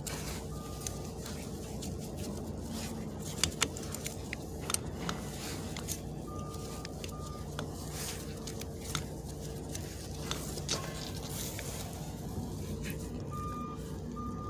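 Steady low mechanical hum, like a vehicle or machine running in the background, with scattered light clicks and a few short, faint high beeps.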